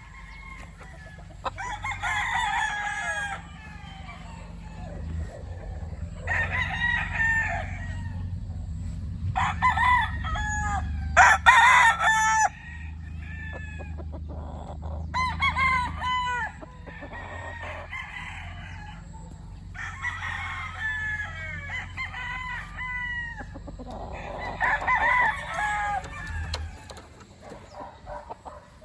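Young gamecock stags crowing again and again, about six separate crows, some overlapping, over a low steady rumble that stops near the end.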